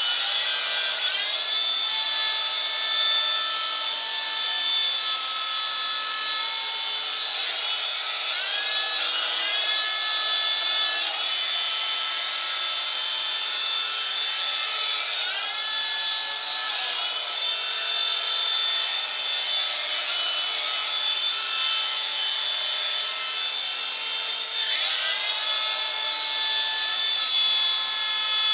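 Small electric motors and rotor blades of a toy RC helicopter running as a hovercraft's thrust: a steady high whine whose pitch dips and climbs back again about four times.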